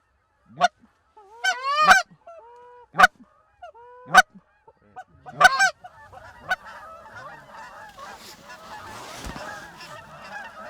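Canada goose honks and clucks: loud single sharp honks every second or so with a few drawn-out moans, then from about six seconds in a dense, overlapping chatter of many geese calling at once, as a flock comes in to decoys.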